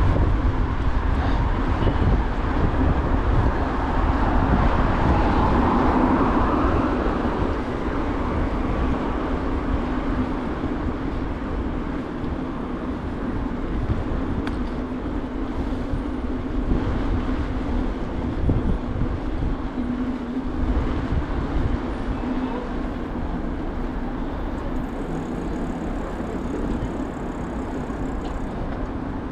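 Steady rush of a bicycle ride on a city street: wind buffeting the microphone over the hum of tyres on asphalt and city traffic. It eases a little after about seven seconds.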